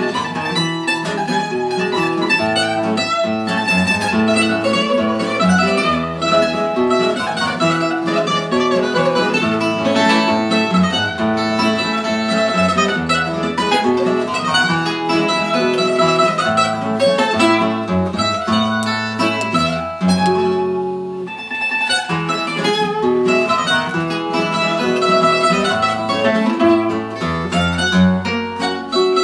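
Instrumental fado guitarrada: Portuguese guitar picking a fast, bright melody over an acoustic guitar accompaniment with a moving bass line. The music eases briefly about two-thirds of the way through.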